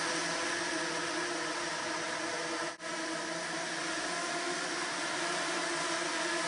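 Steady, dense buzzing whine of a swarm of KMel Robotics nano quadrotors flying together, many small propellers at once. The sound dips for an instant about three seconds in.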